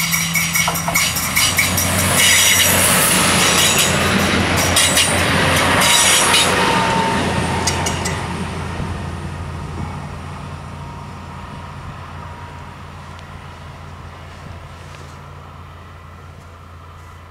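A red Ferrovie Sud Est passenger train passes close by at a level crossing, its wheels clattering rapidly over the track. The sound is loudest in the first six seconds and then fades steadily as the train moves away.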